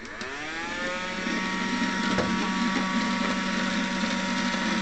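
Cheap battery-powered robot vacuum switched on: its motor whine rises over about a second and then runs steady, with a couple of light clicks.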